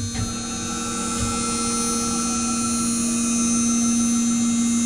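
CNC router running: a steady whine from the spindle and stepper motors as the gantry moves, growing slightly louder.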